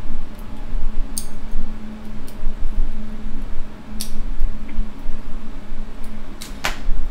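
Hands fitting small parts into the ES121 electric screwdriver: low rumbling handling noise with several sharp clicks spread through it, two close together near the end, as the motor's cable plug is worked into its socket on the board. A steady low hum runs underneath.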